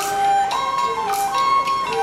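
Traditional Taiwanese opera ensemble music accompanying local gezai: a melody of held notes stepping up and down in pitch, played on a flute-like instrument, with a bright splash of high sound about a second in.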